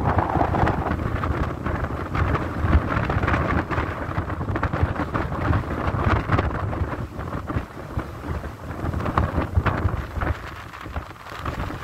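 Wind buffeting the phone's microphone at the open window of a moving car: an uneven rumbling rush that swells and dips, with the car's road noise beneath.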